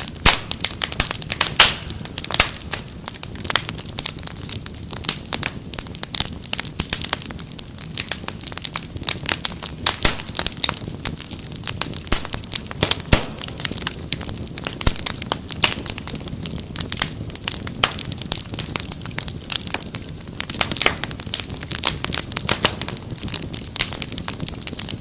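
Wood fire crackling in a fireplace, with frequent irregular pops and snaps over a low steady rumble of flame.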